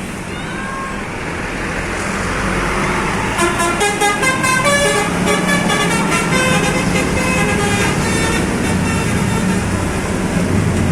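A bus's 'telolet' horn, a multi-tone musical horn, playing a quick stepping melody over the rumble of the bus's engine, starting about three seconds in.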